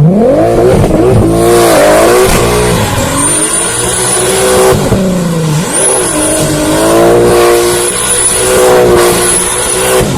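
Volkswagen Golf Mk2 engine revving hard, its pitch climbing and then dropping back several times over.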